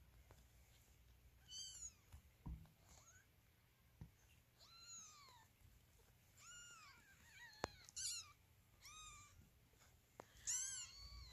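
Ten-day-old kittens mewing faintly: about eight thin, high calls that rise and fall in pitch, a second or two apart and coming closer together near the end. The owner thinks they are probably searching for their mother, who has stepped out to eat.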